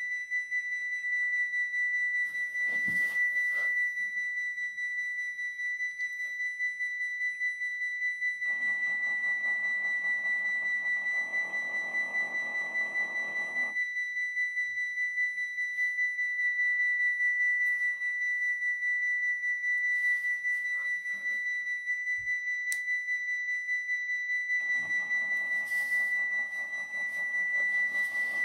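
A model Dutch level crossing's electronic warning bell sounds a steady, high, ringing tone. A second, lower humming tone joins it twice, for about five seconds each time, the second starting a few seconds before the end.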